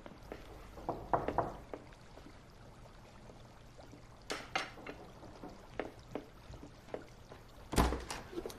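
Quiet household handling sounds: a few soft clatters, then a couple of sharp knocks about four seconds in, and a loud thud near the end as the front door is opened.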